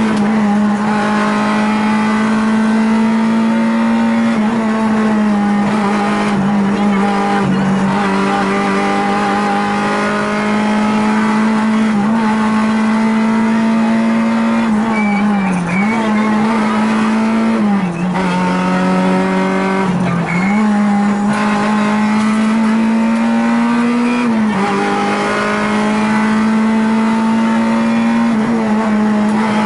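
Rally car engine heard from inside the cockpit, run hard through the gears. Its pitch keeps climbing and then drops briefly at each gear change or lift, several times.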